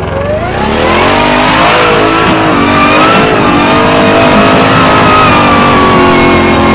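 Off-road vehicle engine revved hard: the revs climb over the first second, then are held high and wavering, as if driving under heavy load on the trail.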